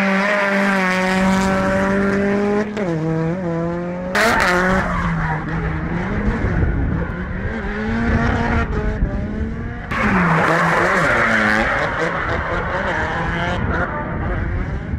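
Drift car engine held high and steady on the throttle, dipping in pitch a few times as the revs are blipped, with tyre noise from the sliding rear wheels. The sound changes abruptly twice as shots cut.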